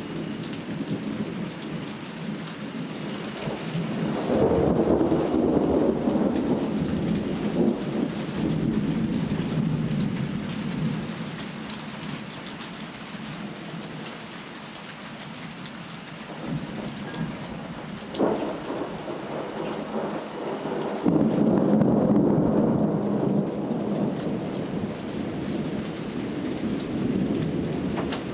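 Thunderstorm: rain falls steadily while two long rolls of thunder build and fade, the first starting about four seconds in and the second about twenty-one seconds in, with a sharp crack a few seconds before the second.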